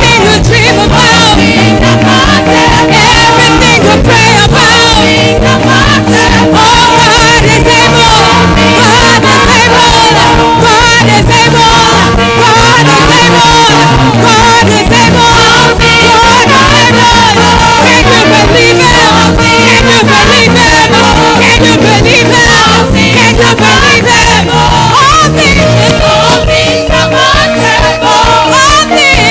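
Live gospel worship music: a choir singing over a band, with a bass line that climbs and falls in a repeating pattern and a steady drum beat.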